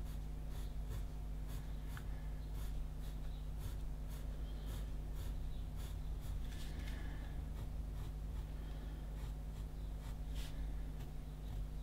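Pencil scratching across paper in quick short strokes, about two or three a second, drawing rows of small curved lines. A steady low electrical hum runs underneath.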